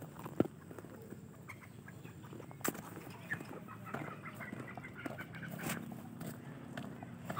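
Serama chickens clucking faintly in short calls, with a few sharp clicks, the loudest a little under half a second in.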